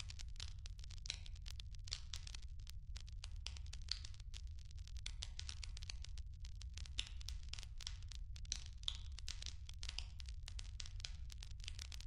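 Firewood burning in a clay brazier, crackling with a constant run of small sharp pops and snaps over a low steady rumble.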